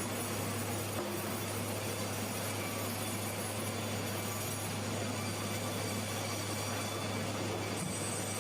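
Sawmill machinery running steadily, a constant low hum under a broad, even machine noise.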